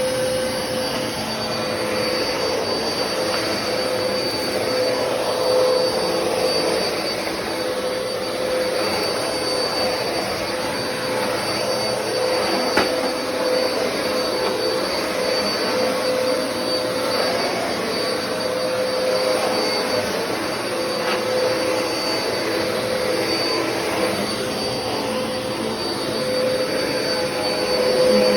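Black & Decker vacuum cleaner running steadily: a constant motor hum with a thin high whine over the rush of air. A single sharp click near the middle.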